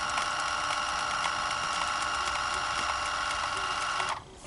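Brother P-touch PT-H110 label maker printing a label: its tape-feed motor whirs steadily with faint regular ticks, then stops abruptly near the end.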